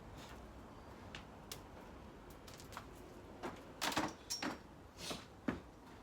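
A scattering of irregular light clicks and knocks, with a louder cluster of knocks about four seconds in and two more shortly after five seconds.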